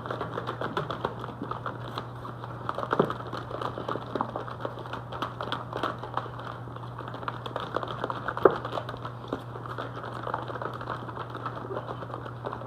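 Kitchen handling noise while sauced cauliflower wings are shaken and moved about in a container: irregular clicks, taps and rattles, with two louder knocks, over a steady low hum.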